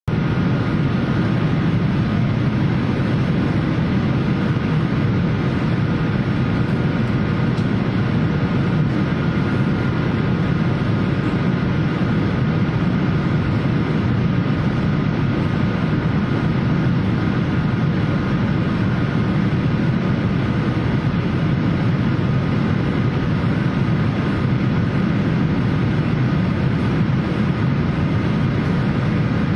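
Steady, even rumble of an airliner heard from inside the cabin, engine and airflow noise with a few faint steady tones above it, as the plane rolls on the runway just after landing.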